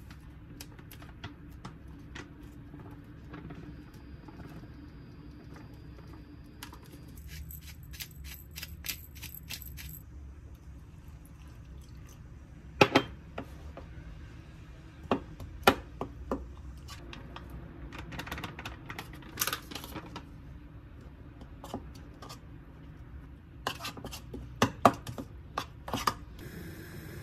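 Kitchen clatter: dishes and utensils clinking and knocking now and then, with a quick run of small clicks a few seconds in and several louder knocks later, over a steady low hum.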